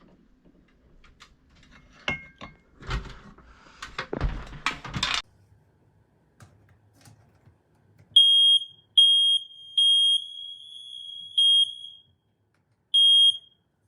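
Clicks, rustling and a few knocks from things being handled, then a smoke alarm's shrill piezo tone sounding loud in five beeps of uneven length, the third about a second and a half long.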